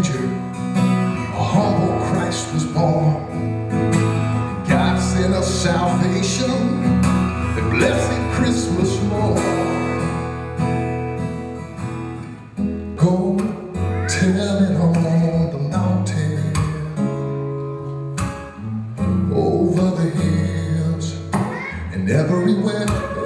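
Acoustic guitar strumming an instrumental passage of a Christmas spiritual, with sustained low notes underneath.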